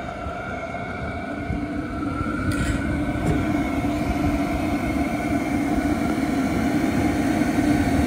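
Hcalory diesel air heater running while still warming up: a steady hum of its blower fan and burner, which grows a little louder about two seconds in.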